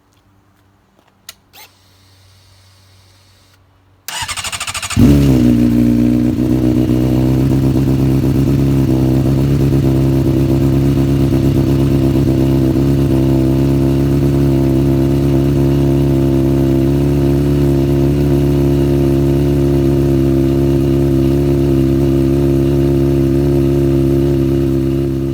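Honda CBR600RR inline-four with a Two Brothers Black Series carbon fiber slip-on exhaust. A few faint clicks, then the starter cranks about four seconds in and the engine fires. It flares briefly, then settles into a loud, steady idle.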